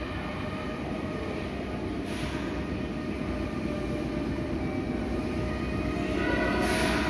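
Meitetsu 6500 series electric train pulling into an underground station platform. Its running rumble grows slowly louder as it approaches, with short hisses about two seconds in and again near the end.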